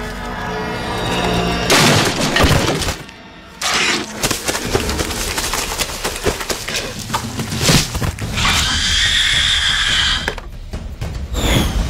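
Film action soundtrack: a dramatic score under loud crashes of things smashing and breaking, with sudden impacts about two seconds in and again around four and eight seconds.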